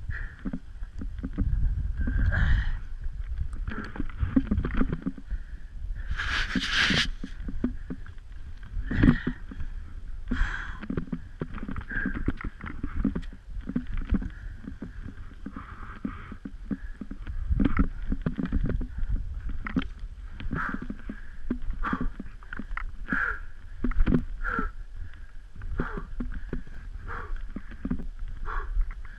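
Irregular crunching and scraping of skis and boots in snow as a skier struggles up a steep slope, with low wind rumble on the microphone. A louder scrape comes about seven seconds in.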